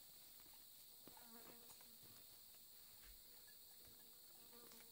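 Faint, steady high-pitched chorus of insects in tropical mountain forest. A low buzz passes twice, about a second in and again near the end.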